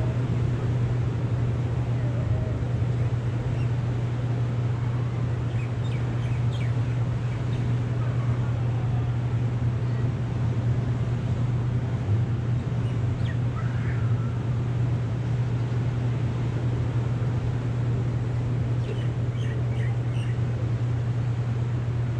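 Steady ambience of breaking ocean surf under a constant low hum, with a few short bird chirps about six, thirteen and twenty seconds in.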